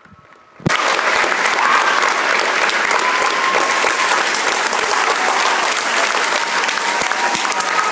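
Audience applause that breaks out suddenly less than a second in and then carries on at a steady level.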